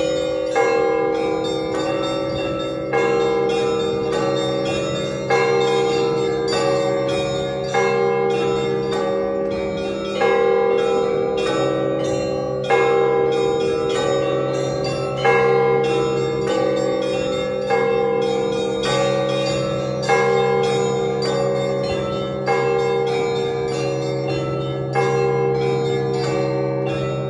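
Orthodox church bells rung in a full peal (zvon): a rapid, even patter of small bells over ringing middle bells, with a heavier stroke about every two and a half seconds.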